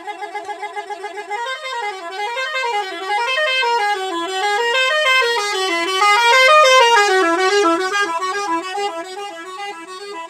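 Telolet horn, a multi-tone electric vehicle horn, playing a quick run of stepped notes that climb and fall over and over. It starts with a fast warble, then settles into slower swoops about once a second, and is loudest a little past the middle.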